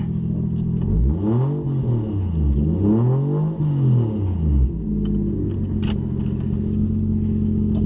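Drift car's engine heard from inside the cabin. It idles steadily, is revved twice in the first half with pitch rising and falling each time, then settles back to idle. A sharp click comes about six seconds in.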